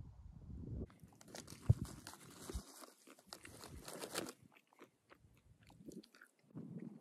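Clear plastic snack packet of nuts crinkling and crackling as it is handled for about three seconds, with one low thump early on, then a few faint rustles and ticks. Before the crinkling starts, a brief low wind rumble on the microphone.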